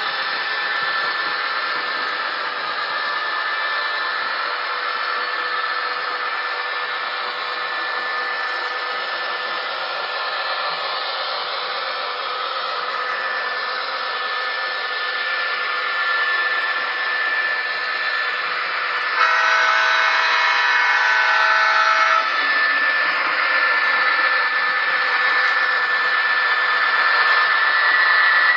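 Model General Electric diesel locomotive's sound decoder playing a diesel engine running at full power, over a steady whir of running model trains. About 19 seconds in, a three-second horn blast.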